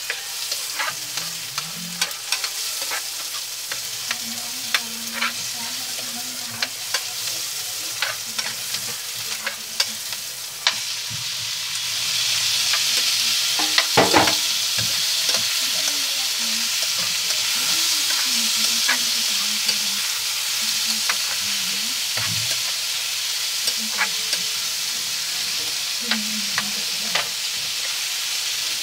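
Food sizzling in oil in a frying pan while a spatula scrapes and taps the pan. About eleven seconds in, the sizzle turns louder and hissier as small shellfish in their shells are stirred in. Shells clatter against the pan, loudest just after the change.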